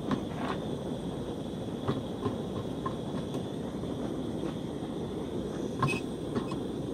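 Canister-top gas camping stove burning with a steady rush under a small metal pot, with a few faint clinks of a utensil stirring rice in the pot.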